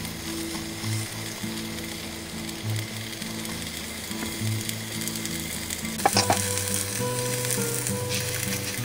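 Paper coffee filter rustling and crinkling as it is opened and pressed into a collapsible silicone dripper, with a cluster of sharp clicks about six seconds in. Soft background music with held notes plays throughout.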